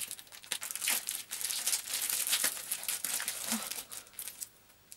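Packaging wrap being pulled off and torn open by hand, a busy run of crinkling and tearing that dies down near the end.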